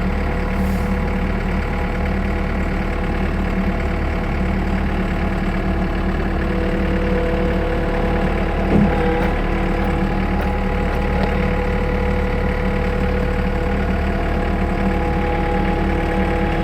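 Skid steer engine running steadily as the machine drives up onto a flatbed truck, heard from the operator's seat, with one brief knock a little past halfway.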